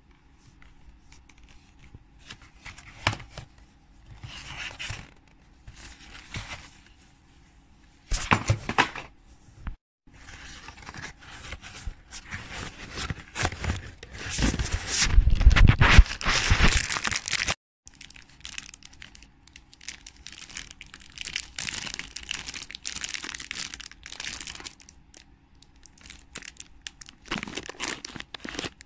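Cardboard chocolate box being torn open and its plastic wrapper crinkled, in irregular bursts of tearing and rustling. The loudest stretch comes a little past the middle and stops abruptly.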